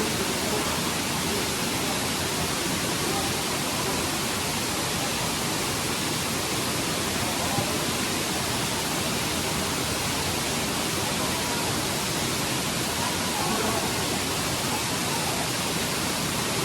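Steady, even rush of falling water from a waterfall, with faint voices under it.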